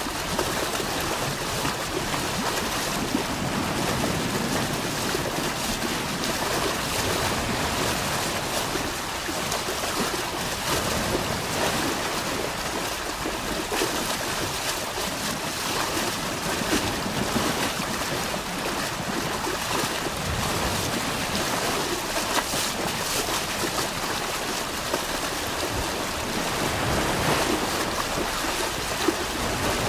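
Steady rush of wind and sea water at sea, with no distinct engine tone or knocks.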